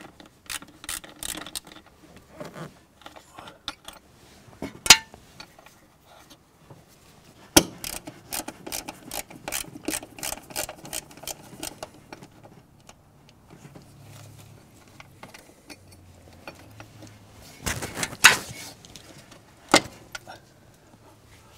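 Hand screwdriver backing out small sheet metal screws and working a throttle-linkage ball-socket mount loose: scattered small metal clicks, scrapes and rattles, with sharp knocks about five and seven seconds in and a cluster of knocks near the end.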